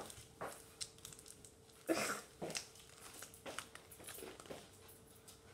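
Plastic packaging crinkling now and then as it is handled, in several short faint rustles. A faint steady hum sits underneath.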